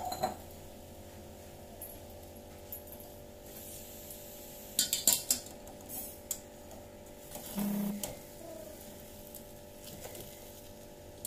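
A few short clinks and scrapes of a serving spoon against the biryani pot, bunched about five seconds in and again near eight seconds, over a steady low hum.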